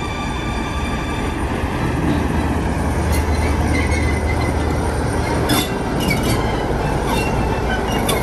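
Class 47 diesel locomotive's Sulzer twin-bank V12 engine running with a deep rumble as the locomotive moves along the track, louder in the middle. A few squeals and sharp clanks come from the wheels and rails, one about five and a half seconds in and one near the end.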